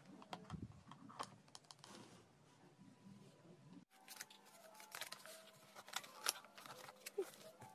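Faint, scattered plastic clicks and taps as a plastic wall-hanging organizer and its clear plastic mounting plate are handled and fitted together.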